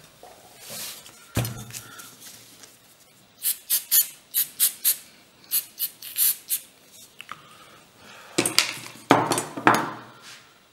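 Aerosol spray can giving a quick run of about ten short hissing puffs, followed near the end by a few louder, longer bursts of hiss. A single knock comes about a second and a half in.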